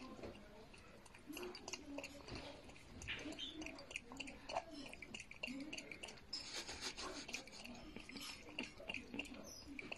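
A raccoon lapping water from a glass mug: faint, quick wet tongue clicks and slurps repeating throughout.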